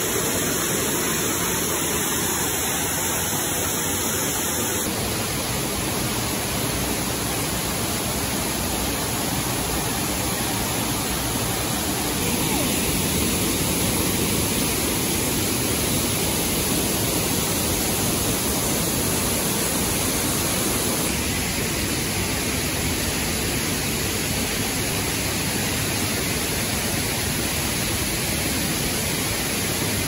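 A waterfall pouring into its plunge pool: a steady, even rush of falling water. Its tone shifts slightly a few times.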